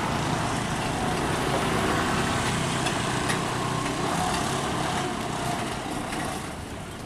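Diesel engine of a self-loader flatbed truck running at low speed as the truck creeps slowly around a tight bend; a steady engine note that eases slightly near the end.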